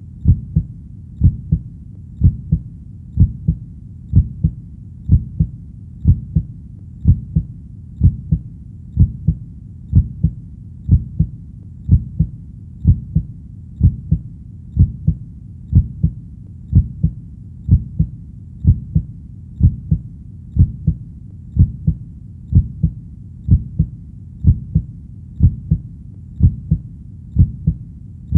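Heartbeat sound: a steady lub-dub double beat repeating about once a second, deep and low-pitched.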